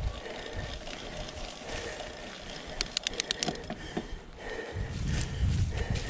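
Mountain bike rolling over dry fallen leaves on a dirt singletrack, the tyres rustling and crunching, with a quick run of sharp clicks about three seconds in. Near the end a louder low rumble comes in.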